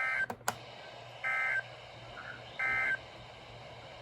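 NOAA Weather Radio SAME end-of-message code: three identical short bursts of shrill digital data tones, about 1.3 seconds apart, marking the close of a Required Weekly Test broadcast. Two sharp clicks follow just after the first burst.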